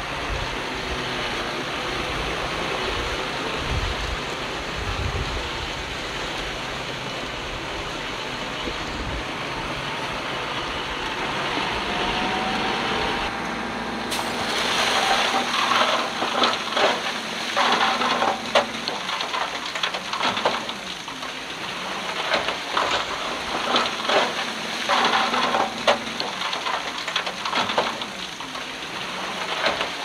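Heavy diesel earthmoving machinery at work: an engine running steadily, then after an abrupt change about halfway through, a steadier engine hum under dense, irregular crackling and clatter.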